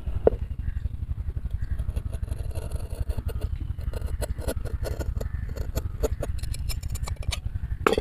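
Large steel scissors cutting through a rubber football bladder: a run of small, sharp snipping clicks as the blades close through the rubber. A steady low rumble runs underneath.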